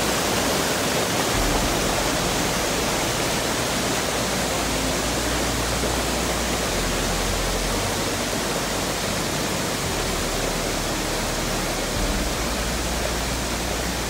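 Waterfall pouring over rocks into a cascading mountain stream: a steady, even rush of water.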